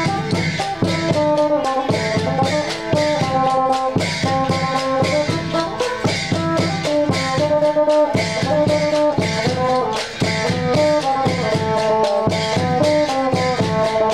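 Isan mak kap kaep, pairs of hand-held wooden clappers, clicked together by several players in a steady rhythm, over a melody of held, stepping notes.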